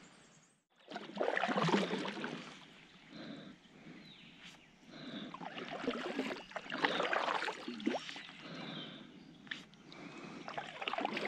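Kayak paddle strokes in water: a splash and the trickle of water running off the blade, repeating every second or two.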